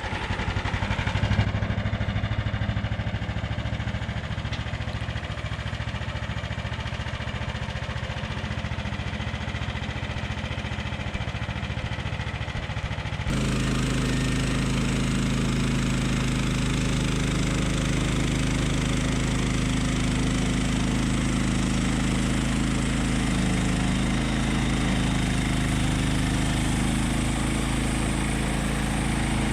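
Gas engine of a Frontier band sawmill running steadily. Its sound changes abruptly about 13 seconds in and runs on evenly after that.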